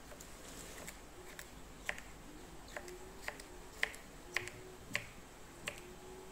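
Kitchen knife dicing a cucumber on a wooden cutting board: a string of sharp taps of the blade striking the board, roughly every half second.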